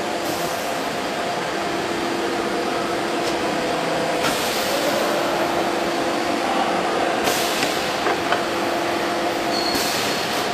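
Machinery running with a steady hum, with three short hissing bursts about four, seven and ten seconds in.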